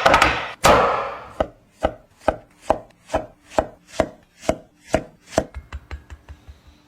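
Kitchen knife chopping on a cutting board in steady strokes, about two to three a second, growing softer near the end. A couple of louder, longer-decaying hits come in the first second.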